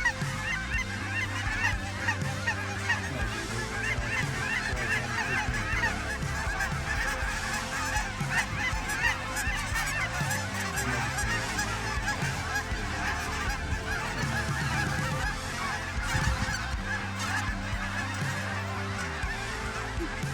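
A very large flock of geese honking and calling all at once, a dense unbroken clamour of overlapping calls, as the birds pour down into a decoy spread.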